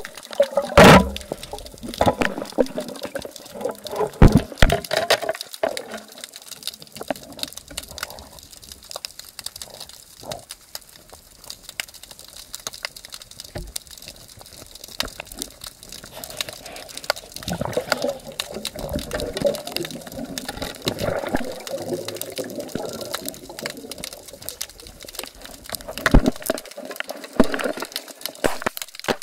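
Muffled underwater water noise heard through a submerged camera, with sharp clicks and knocks against the mussel-covered bamboo stake, loudest about a second in, around four to five seconds in, and near the end.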